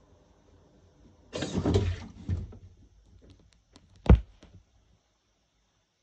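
Handling noises at a top-loading washing machine: a scraping rustle about a second in, then a single sharp thunk about four seconds in.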